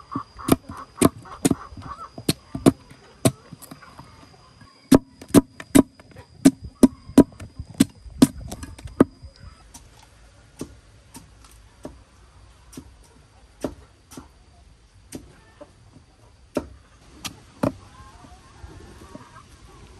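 A long series of sharp knocks or chops, about two a second and loud for the first nine seconds or so, then sparser and fainter.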